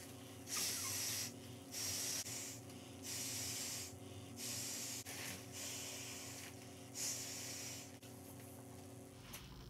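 A person blowing into the valve of an inflatable sleeping pad by mouth, about six breathy, hissing puffs of half a second to a second each, with short pauses between, as the pad fills.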